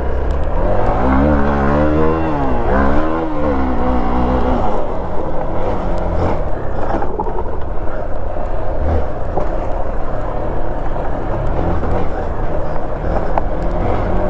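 Motorcycle engine revving up and dropping back twice as the bike pulls away, then running steadily at low revs while it rolls down a dirt trail. Wind rumbles on the microphone throughout, and there are scattered knocks from the rough track.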